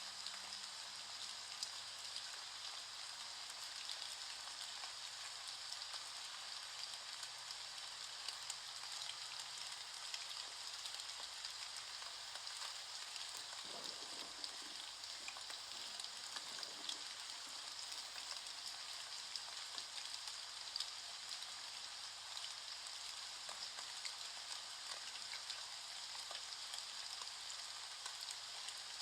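Steady rain, a dense even hiss of drops with many tiny ticks.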